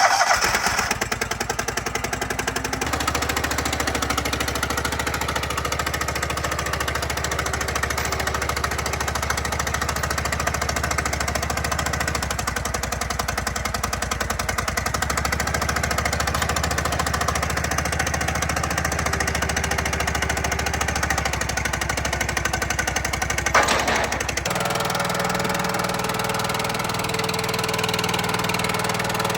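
Vermeer SC30TX stump grinder's engine starting up and running steadily with a fast, even chattering beat. A short sharp knock comes about 23 seconds in, after which the engine note shifts higher.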